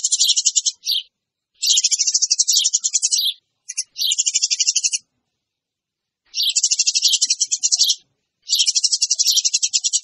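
Eurasian tree sparrows chattering noisily: fast, dense runs of high chirps at about ten a second, in about five bouts broken by short silences. A sparrow lure call.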